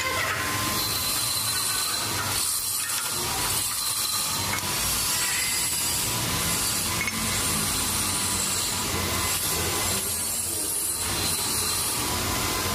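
Metal lathe turning a steel workpiece: a steady cutting noise with a faint steady whine.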